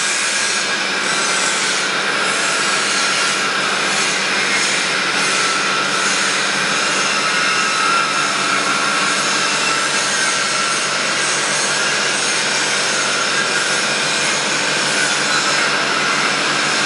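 Castel CNC horizontal boring mill with a 130 mm spindle, running: a steady machine whir and hiss with a low hum underneath.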